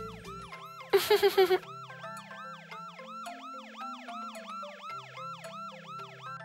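Cartoon toy fire engine's siren, a rising-and-falling whoop repeating about three times a second over a simple background tune. About a second in comes a short, loud, stuttering sound effect of half a dozen rapid pulses.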